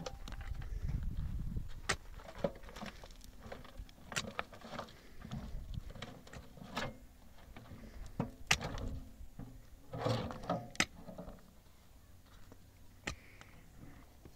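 Metal wheelbarrow knocking and rattling as it is wheeled over stony ground and tipped to dump a load of soil, with irregular sharp knocks throughout and a denser scraping burst about ten seconds in.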